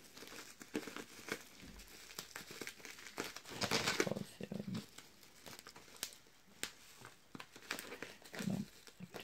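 Bubble wrap crinkling and brown packing tape tearing as a taped, bubble-wrapped box is unwrapped by hand, in irregular rustles and crackles, loudest about four seconds in.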